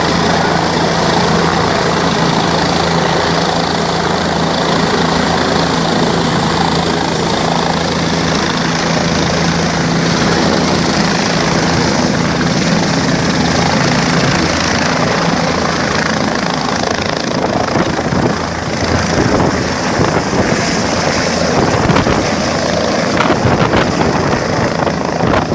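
Helicopter running: a steady, loud drone with a faint high whine that fades about halfway through. The sound turns more uneven and gusty in the second half.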